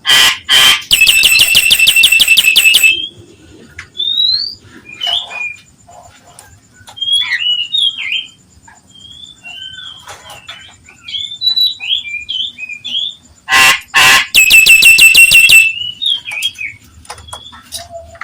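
Nias hill myna calling: twice, a pair of loud harsh squawks followed by a rapid rattling trill about two seconds long, with varied whistled and chirping notes in between.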